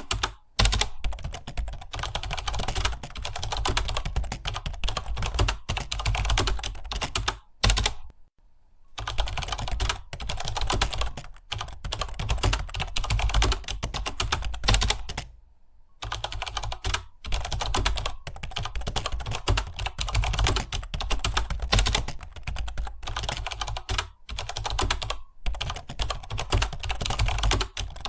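Fast, continuous typing on a computer keyboard, rapid keystrokes with two short pauses, about eight and fifteen seconds in.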